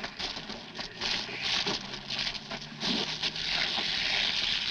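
Water spraying from a hose, an uneven hissing patter that turns into a steadier hiss near the end.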